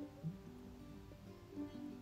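Quiet background music: a plucked guitar melody.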